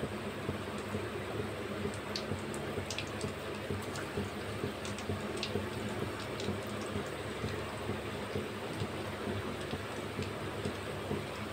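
Keema-coated boiled eggs deep-frying in hot oil in a kadai: a steady sizzle and bubbling with scattered sharp crackles and pops, over a low steady hum.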